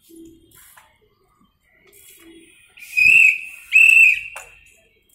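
Small toy whistle blown twice by a child: two short, shrill blasts about half a second apart, each held at one steady high pitch.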